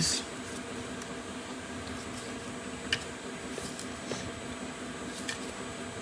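Faint, scattered clicks from a Polaris Sportsman 850 engine as its crankshaft is turned over slowly by hand, through 270 degrees to bring it into position for setting valve lash, over a steady low hum.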